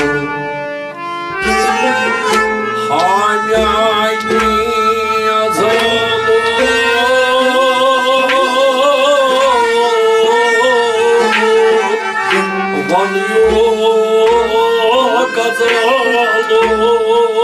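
Kashmiri Sufi folk ensemble playing: harmonium and bowed sarangi carry a wavering melody, a rabab is plucked, and a noot (clay pot drum) is struck in a steady beat.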